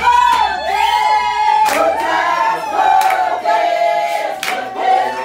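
A group of women singing together, with hand claps keeping a beat.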